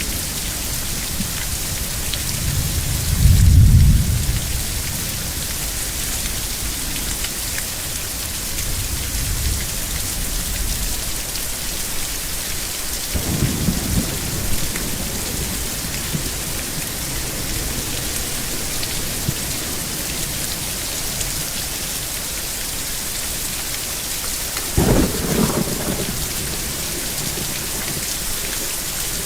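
Thunderstorm: steady heavy rain hissing, with thunder rumbling three times. The loudest rumble comes about three seconds in, another in the middle, and the last, near the end, opens with a sharper crack.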